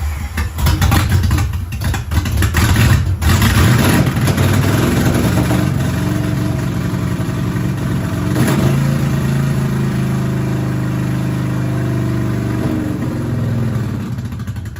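Car engine run hard. Rough and uneven for the first few seconds, then held at steady high revs, climbing a little midway, before dropping away at the end.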